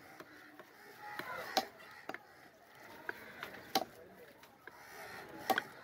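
Heavy fish-cutting knife chopping through chunks of a large red fish on a wooden block: about four sharp chops at uneven intervals of one to two seconds, with a few lighter knocks between. Faint voices are heard behind.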